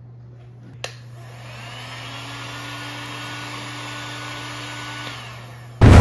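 Handheld heat gun switched on with a click, its fan spinning up to a steady whir with a faint whine as it heats the shrink band over a hot sauce bottle cap, then winding down about five seconds in. Right at the end a sudden, very loud rushing noise starts.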